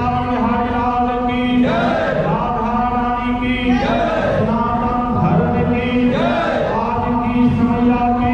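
Men chanting a Hindu aarti hymn in chorus, led by a man singing into a microphone through the shrine's loudspeaker. The sung phrases repeat about every two seconds over a steady low tone.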